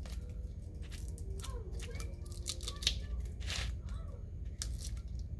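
Adhesive vinyl decal being weeded: a pointed weeding tool scratching and picking at the vinyl sheet in short, irregular scraping strokes, with the vinyl crackling as it lifts.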